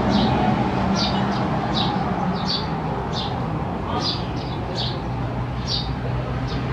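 Steady background hum and hiss, with short high chirps repeating about twice a second.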